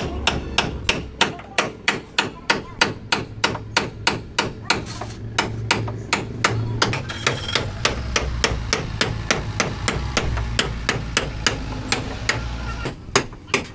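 Hammer driving a chisel into the sheet-steel roof of a Maruti Omni van to cut it away: a rapid, steady run of sharp metallic strikes, about three to four a second.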